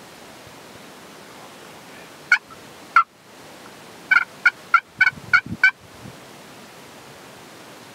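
Wild tom turkey calling: two short sharp notes about two seconds in, then a quick run of about seven notes over a second and a half, a gobble.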